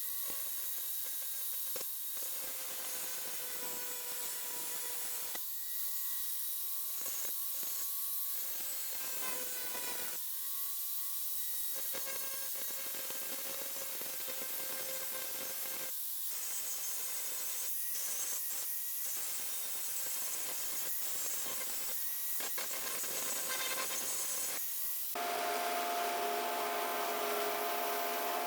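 Small electric power tool running with a steady whine over a rasping, rubbing noise as it works abrasively on the rusty steel of the cleaver. The whine cuts out briefly several times, and about 25 seconds in it changes to a different, denser set of tones.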